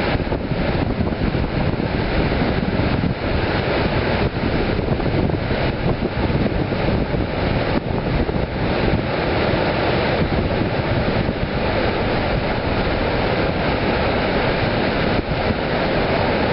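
Steady roar of a large waterfall with wind buffeting the microphone, under the low rumble of a CSX intermodal freight train rolling across the bridge above the falls.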